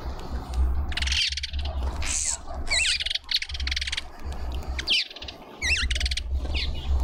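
Small garden birds calling: several short, quick up-and-down chirps and a few buzzy, rapid chattering trills, over a low rumble that comes and goes.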